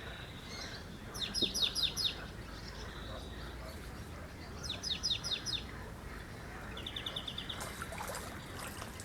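A songbird singing short phrases of quickly repeated high notes, three phrases a few seconds apart, over a steady outdoor background.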